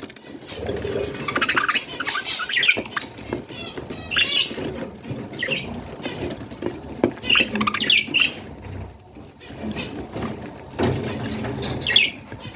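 Baby budgerigars giving short raspy chirps and squawks, repeated in bursts every second or two, over soft rustling.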